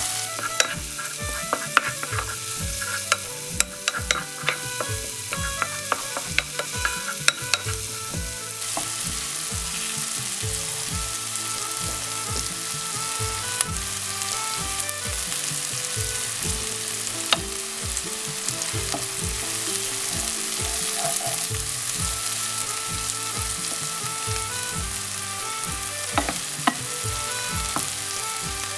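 Chopped onion frying in ghee with spices in a pan, sizzling steadily. A wooden spatula stirs it, scraping and clicking against the pan through roughly the first third, then only now and then.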